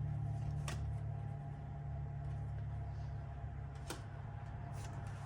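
Steady low hum with a few short, sharp clicks from a trading-card booster pack being handled and opened.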